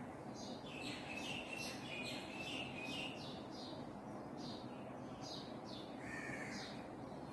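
Birds chirping: a run of short, high calls in the first three seconds, scattered chirps after, and one longer, lower call near the end, over a steady background hiss.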